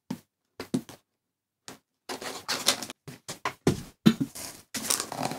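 Cardboard boxes being handled: a few light taps and flap rustles, then from about two seconds in, continuous scraping and rustling of cardboard as the inner laptop box is worked out of the outer shipping carton.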